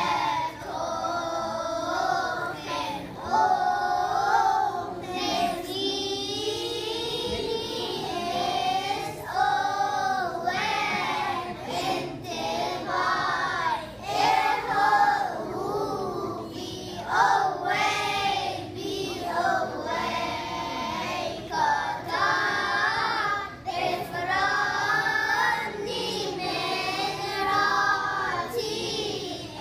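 Children's choir singing together, their young voices carrying one melody line after line.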